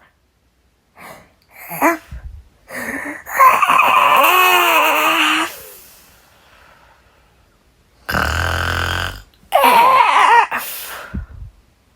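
A person's voice acting out a long, drawn-out yawn, followed a few seconds later by a rough, low mock snore and a few short vocal noises.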